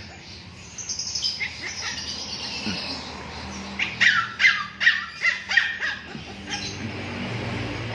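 A dog yelping and whining: high, falling cries, with a quick run of yelps in the middle.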